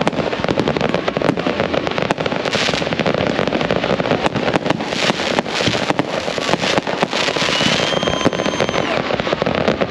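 Fireworks and firecrackers going off nonstop: a dense, irregular crackle of many bangs and pops, with a brief high whistle about three quarters of the way through.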